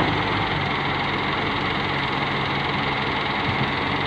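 Diesel engines of a wheeled excavator and a tractor running steadily, a constant engine hum with a low steady tone.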